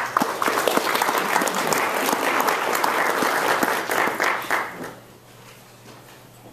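Audience applauding, a burst of many hands clapping that dies away after about five seconds.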